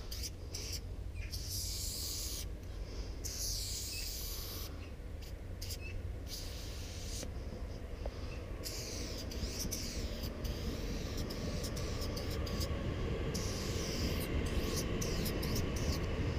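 Aerosol spray can of copper chrome graffiti paint hissing in a series of short bursts with pauses between, as lines are sprayed onto a wall. A steady low rumble sits underneath.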